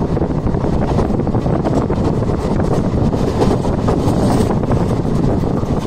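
Moving Indian Railways passenger train heard from an open carriage window: steady rumble and rush of wind buffeting the microphone, with frequent clatter from the running gear.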